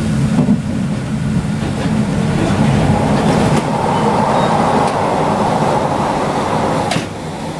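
Running noise of a moving sleeper train heard inside the car: a steady low rumble of wheels and bogies on the track. A higher, even hum comes up from about three seconds in, and the sound drops suddenly near the end.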